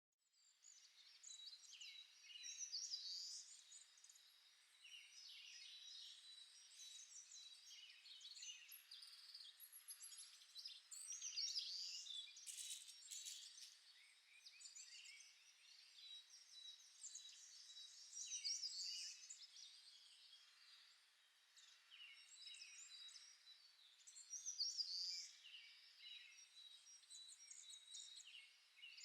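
Faint chorus of small birds chirping and twittering continuously, with a thin steady high tone running underneath.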